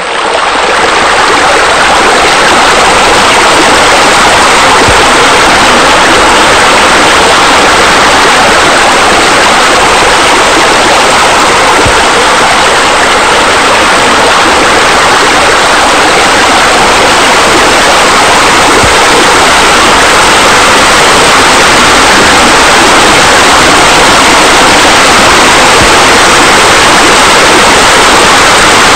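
Steady rushing water, like a waterfall or water feature pouring: a loud, even hiss with no pauses, swelling in over the first second.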